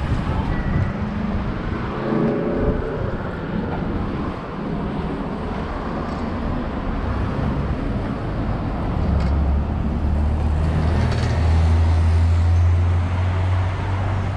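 Street traffic noise with a motor vehicle's low engine rumble that swells in the second half and stays loud near the end.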